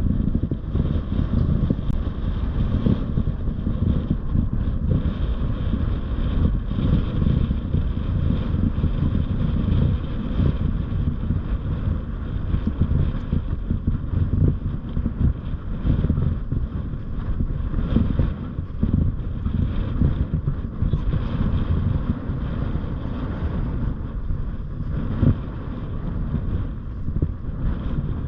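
Wind buffeting the microphone: a continuous low rumble that swells and dips with the gusts.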